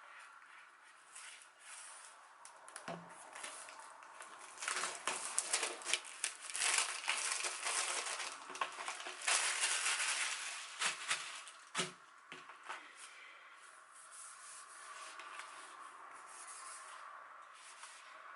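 Crinkling and tearing of an album's packaging as it is unwrapped by hand, with many small crackles, loudest through the middle, and a couple of soft knocks.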